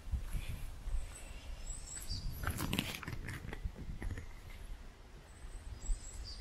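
A brief animal call about two and a half seconds in, over a steady low rumble on the microphone.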